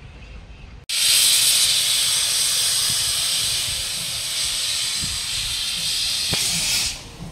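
Steam locomotive blowing steam from its open cylinder drain cocks as it pulls away: a loud, steady hiss that starts abruptly about a second in and cuts off shortly before the end.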